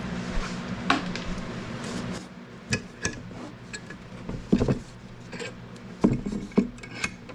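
Scattered clinks and knocks of metal parts and tools being handled and set down on a hard surface, over a steady low hum.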